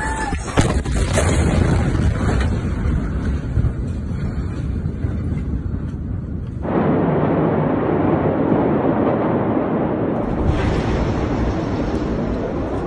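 Heavy, rumbling roar of a huge explosion and its blast wave, with a few sharp knocks and rattles about half a second in. About halfway through the roar turns suddenly louder and fuller.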